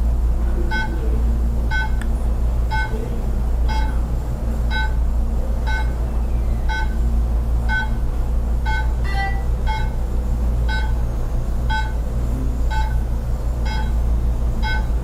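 Class 4 therapy laser beeping about once a second while it is emitting: a short, evenly spaced beep, the audible signal that the laser is firing. It sounds over a steady low hum, with one brief different chirp about nine seconds in.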